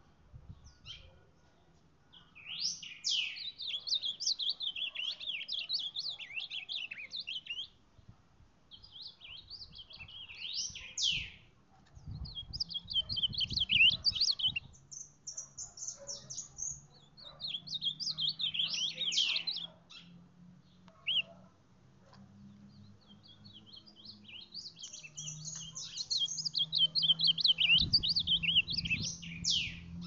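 Caged male reina mora (ultramarine grosbeak) singing: quick, warbled song phrases of a few seconds each, repeated with short pauses between them, with a longer, louder run of song near the end.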